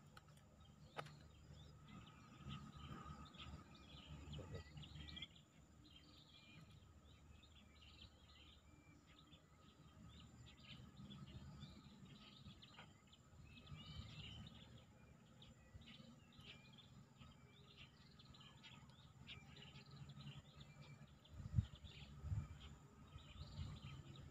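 Faint birdsong: many small birds chirping and calling in short, scattered notes over a low, steady rumble of outdoor background noise. A single sharp thump about three seconds before the end is the loudest sound.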